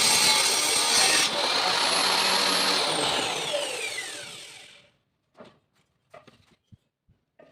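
Table saw cutting wood until about a second in, then its motor running free with a steady high whine before being switched off and spinning down, the whine falling in pitch and fading out. A few light knocks and clicks follow near the end.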